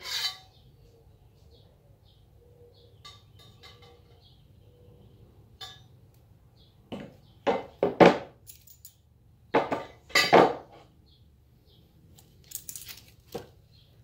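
Steel rail sections of a garage door opener clanking against each other and the floor as they are handled. There is a knock at the start, light ticks, then two bunches of loud clanks in the second half and one more knock near the end.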